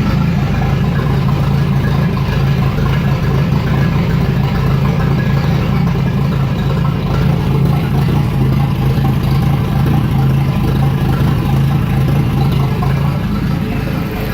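An engine running steadily at an even speed, a loud, unchanging low hum.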